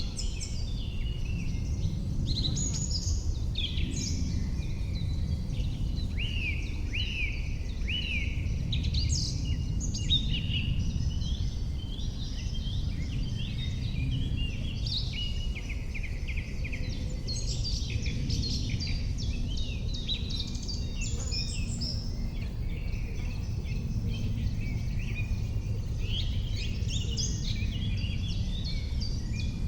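Several songbirds singing, with overlapping chirps and trills throughout, over a steady low rumble of background noise.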